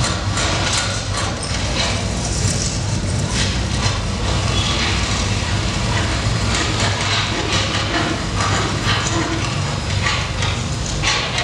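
A steady low, engine-like rumble from the projection show's sound system, under a noisy hiss, with a crowd murmuring.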